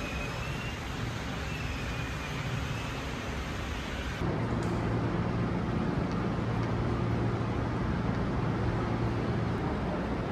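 Steady vehicle noise, which about four seconds in jumps suddenly louder into a steady low engine hum.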